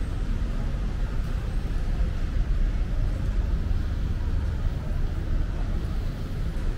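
Steady low background rumble with an even haze of noise over it, unchanging throughout.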